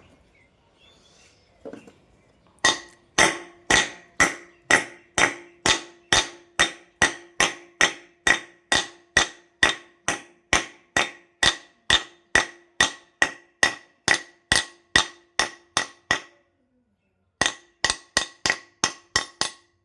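Hammer tapping a new ball bearing into its seat in a ceiling fan, with light, even strikes about two or three a second, each with a short ringing note. After a brief pause comes a quicker run of about eight taps. The bearing is being driven home evenly by tapping around it.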